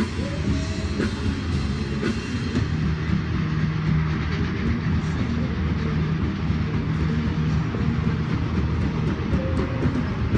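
Double-stack intermodal freight train rolling across a railroad bridge: a steady rumble of the cars, with some clickety-clack of wheels over rail joints.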